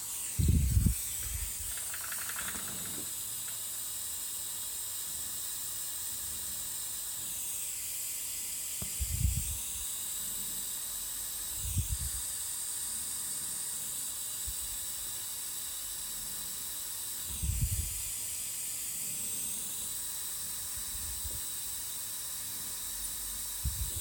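Steady high hiss with a handful of short, dull low bumps spread through it, the handling knocks of soldering a new microswitch's leads onto a trackball's circuit board.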